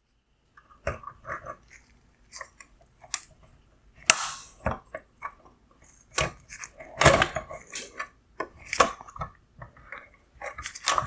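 Wire connector being worked off the bi-xenon solenoid of a Mercedes headlight projector, with the plastic housing and bracket handled: irregular plastic clicks, taps and short scrapes.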